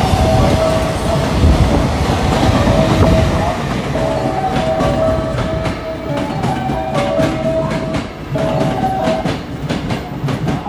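Empty container flat wagons of a freight train rolling past at speed, their wheels clacking over rail joints as the tail of the train goes by. A repeated two-note tone sounds over the rumble in short runs.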